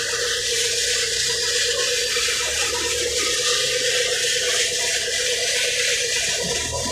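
Wheel loader's diesel engine running steadily, heard from inside the cab, with a dense steady hiss over a low rumble and a held tone.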